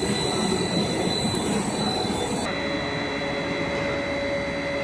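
Production machinery of an HDPE geomembrane extrusion line running: a steady mechanical din with several constant high-pitched whines. The mix of tones changes abruptly about halfway through.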